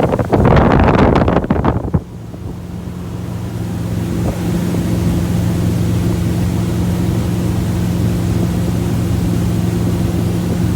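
Motorboat under way: loud rush of wind and water for the first two seconds, then the noise drops off sharply and a steady low engine hum carries on, slowly swelling.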